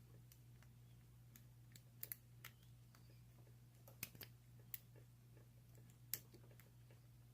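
Lock pick and tension wrench working the pin stack of a small Tri-Circle 264 padlock: faint, irregular metallic clicks as pins are set, with a few sharper clicks about two, four and six seconds in, over a low steady hum.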